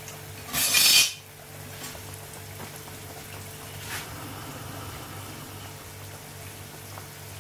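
Badusha dough discs frying gently in oil at medium heat: a soft steady sizzle over a low steady hum, with a brief louder burst of hiss just before a second in.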